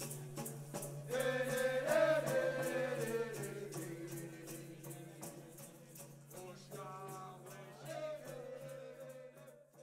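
Music: a steady low drone and an even beat of short shaken ticks, with a voice singing a slow melody that enters about a second in. The music fades out at the end.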